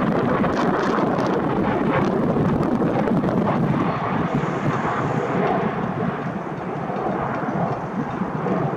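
Airliner engines running, a steady rushing noise that eases a little about halfway through, with wind buffeting the microphone.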